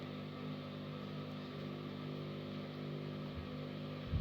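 Steady low hum of several constant tones over an even background hiss, with no distinct events.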